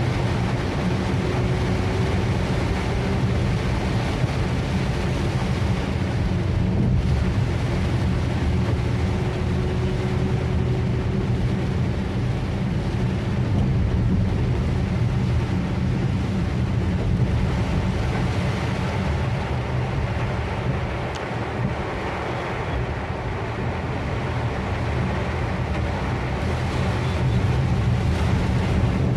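Rain falling on a car's roof and windows, heard from inside the cabin: a steady, dense hiss over a deep low rumble.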